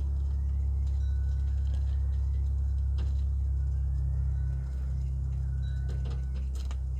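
Faint bobwhite quail calls, short flat whistles and dipping notes every couple of seconds, over a loud steady low hum, with a few sharp clicks about three and six seconds in.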